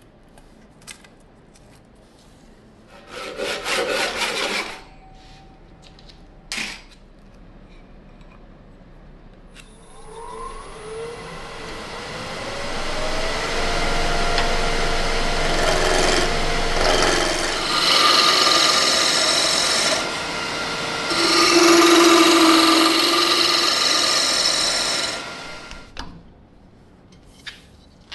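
Wood lathe motor spinning up, rising in pitch, with a wooden stool leg turning on it. A tool or abrasive is then held against the spinning wood, giving a loud rasping noise in two heavy bouts, as the leg is shaped. The lathe then shuts off and winds down near the end. A short rasp sounds a few seconds in, before the lathe starts.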